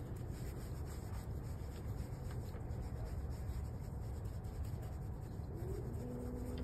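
Nitrile-gloved fingers rubbing on a dog's short fur: a soft, steady scratchy rubbing over a low rumble. It is the stroking of her vulva to stimulate contractions after artificial insemination.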